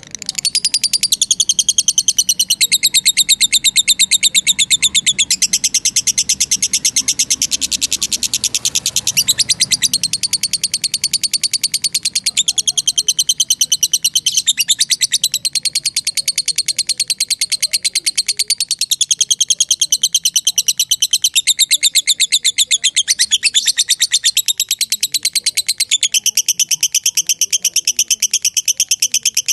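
Lovebird singing its long 'ngekek' chatter: a loud, fast, high trill of rapidly repeated notes that runs almost without a break, pausing only briefly a few times.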